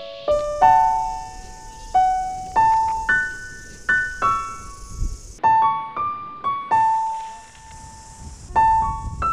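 Background piano music: a slow melody of single struck notes, each ringing out and fading, with one longer held note past the middle.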